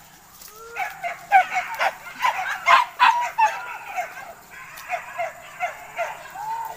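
Several hunting dogs barking and yelping in quick, overlapping calls, densest and loudest in the first half, then thinning to scattered high yelps.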